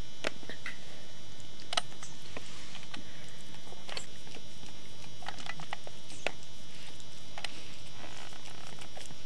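Faint, scattered small clicks and soft rustles over a steady hum and hiss, as a mother dog licks and tends her newborn puppies on a blanket.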